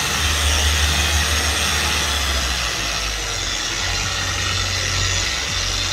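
Truper electric car polisher running steadily on its top speed setting, 6 (5100 rpm), a loud, even motor sound over a low hum; the low hum changes a little about halfway through.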